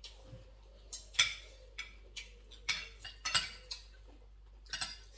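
Forks and spoons clinking and scraping against dinner plates as people eat, an irregular string of short sharp clinks, the loudest a little over a second in.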